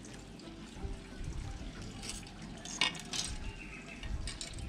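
Fishing rods being handled on a concrete table: a few light clicks and taps as a rod blank is set down, over faint background noise.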